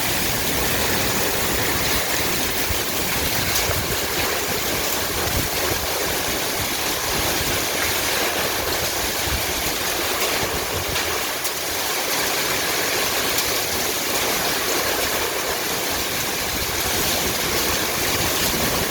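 Heavy rain pouring down steadily, a dense, even hiss of water.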